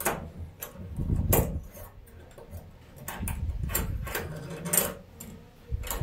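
Small steel 90-degree bolt latch being handled and positioned against a wooden door: several sharp, irregular metal clicks and taps, with rubbing and handling noise between them.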